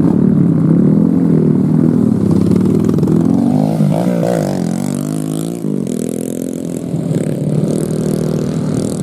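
Several trail dirt-bike engines running and revving over uneven ground, their overlapping pitches rising and falling as the throttles open and close.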